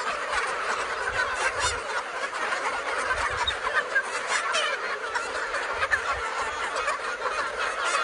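A large flock of free-range chickens clucking and calling, many birds at once in a continuous chatter.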